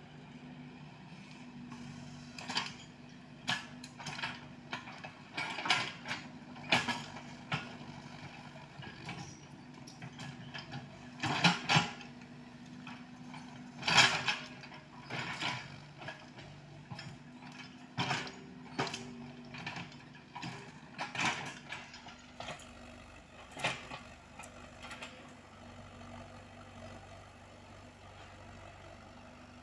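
Komatsu PC78UU mini excavator's diesel engine running steadily under a working load while the steel bucket scrapes and knocks against soil and stones. Sharp clanks come every second or two, and the loudest two fall a little before and after the middle.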